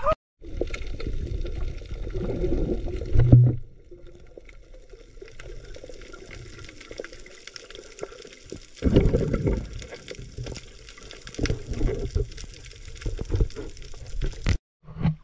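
Sea water sloshing and gurgling, mostly low in pitch, with a heavy bump about three seconds in and louder surges later on; it cuts off suddenly near the end.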